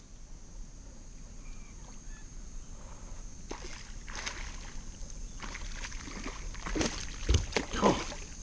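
A hooked bass splashing at the water surface beside a kayak as it is played in, a run of irregular splashes starting a few seconds in and growing louder near the end.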